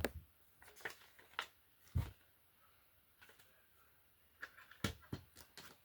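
Handling noise from a CD case being turned over in the hands: scattered light clicks and taps, with three louder low thumps, at the start, about two seconds in and about five seconds in.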